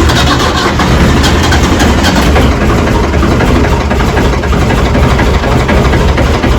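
Ford 4500 backhoe engine running steadily at idle with a loud, even low rumble, shortly after being started.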